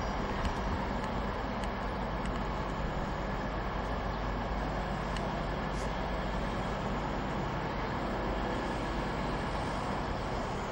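Virgin Voyager diesel multiple unit standing at the platform with its underfloor diesel engines idling: a steady low hum, with a few faint ticks.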